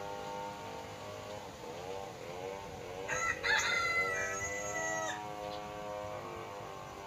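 A rooster crowing once, with a long held note lasting about two seconds in the middle, over a steady low drone.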